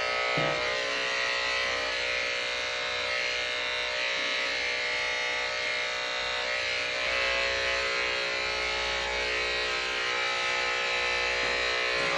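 Electric dog clippers buzzing steadily as they shave a border collie's thick coat down short.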